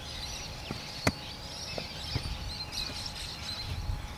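Birds chirping over a low rumble of wind on the microphone, with one sharp knock about a second in.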